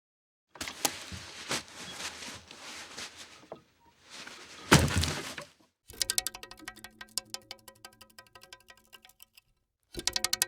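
A run of short foley effects one after another: scraping and rustling with sharp clicks, a single heavy thunk, then a rapid, evenly spaced train of clicks that fades, with a second click train starting near the end.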